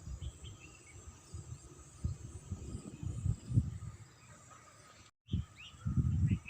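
Steady high chirring of grasshoppers and crickets with a few short bird chirps, under irregular low buffeting of wind on the microphone. The sound cuts out completely for a moment about five seconds in.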